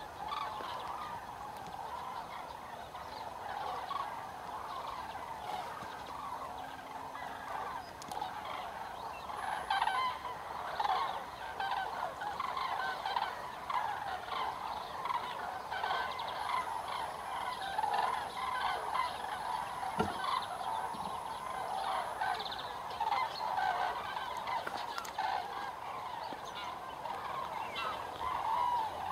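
A large flock of common cranes calling, many calls overlapping into a continuous chorus.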